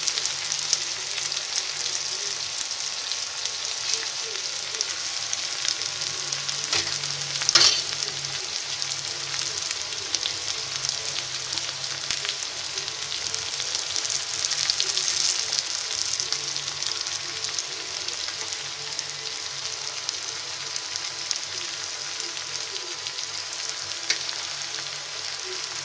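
Chopped garlic, green chillies and ginger sizzling steadily as they fry in a little oil in a kadhai. There is one sharp knock about a third of the way in.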